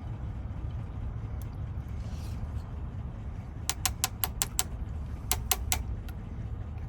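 Light, sharp metallic clicks from small lock-cylinder parts being handled with tools: about five quick clicks, then three more a second later, over a steady low background rumble.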